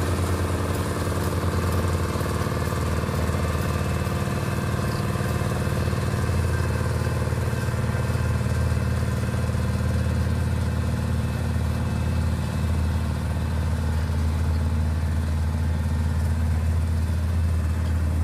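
Small single-cylinder engine of a walk-behind double-drum roller running steadily at a constant speed on the gravel road base, a low even drone.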